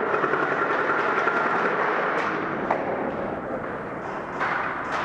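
Steady indoor airsoft-arena din with a few scattered sharp cracks of airsoft guns firing, about four of them over the last three seconds.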